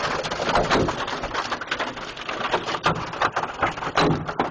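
Heavy hail, mixed with rain, pelting down: a dense, steady clatter of hailstones striking hard surfaces, made up of many sharp, irregular impacts.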